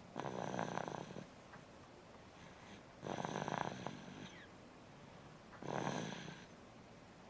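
Snoring: three snores, each about a second long, coming a little under three seconds apart with quiet breathing between.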